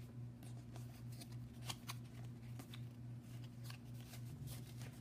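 Baseball cards being flipped and slid through a stack by hand: a run of light, irregular clicks and swishes. A faint steady hum underlies it.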